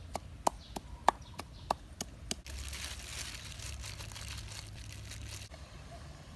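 Wooden pestle pounding in a clay mortar: sharp, even knocks about three a second. After an abrupt change, plastic-gloved hands kneading raw chicken pieces in a bowl make a steady crinkling, squishing rustle.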